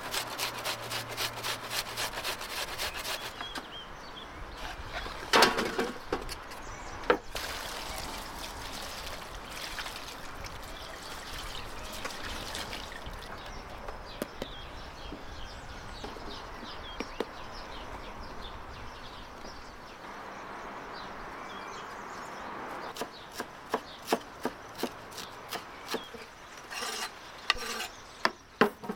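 Onion being grated on a metal box grater, a quick run of rasping strokes that stops after about three seconds, followed by two loud knocks. Softer handling and rustling of eggplants and parsley in a metal colander follows, and near the end a series of sharp knife chops on a wooden board.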